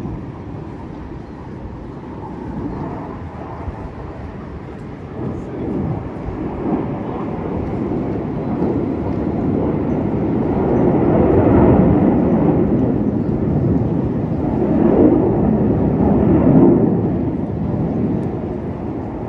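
Jet roar from a formation of T-50B jet trainers flying past, a deep rumbling that swells about halfway through and again near the end.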